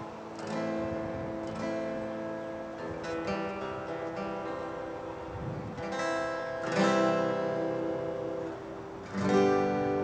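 Acoustic guitar being strummed, its chords ringing on between strokes, with harder strums about six, seven and nine seconds in, the last the loudest.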